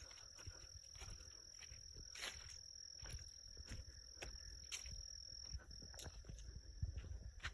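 A steady, high-pitched insect trill, like crickets, that breaks off briefly near the middle. Under it are scattered footsteps and low rumble as the camera is carried around outdoors.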